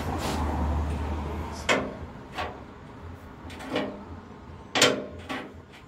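Five sharp knocks and clunks, as of parts being handled against the narrowboat's steel hull, the loudest just before the end, after a low rumble in the first second and a half.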